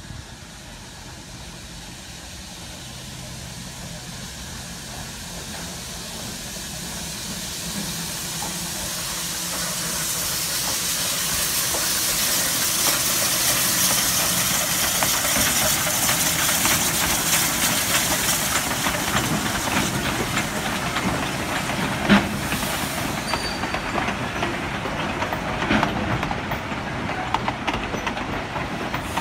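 Small steam locomotive approaching and passing close beneath, growing steadily louder with a strong hiss of steam as it goes by. Passenger coaches follow, rolling past with knocks and clacks of wheels over the rail joints, one sharp knock about two-thirds of the way in.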